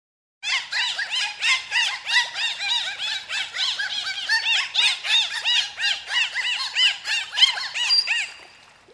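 Dolphins whistling: many overlapping short whistles, each rising and falling in pitch, several a second. They start about half a second in and fade out near the end.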